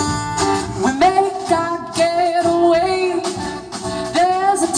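Live acoustic band playing, with sung lines over acoustic guitars and upright bass.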